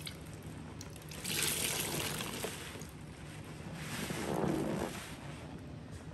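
Bleach solution splashing and trickling in two bursts, the first about a second in and a fuller, lower one around four seconds in.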